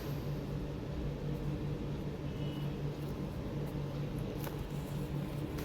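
A steady low machine hum with a hiss of background noise.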